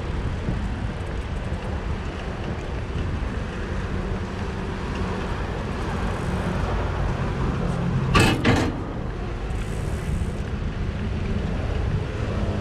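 Steady low rumble of a bicycle ride with road traffic alongside. About eight seconds in come two sharp knocks in quick succession.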